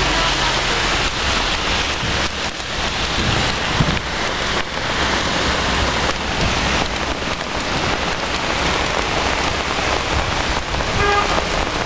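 Heavy rain pouring down steadily, a downpour drumming on the street and balcony hard enough to flood the road.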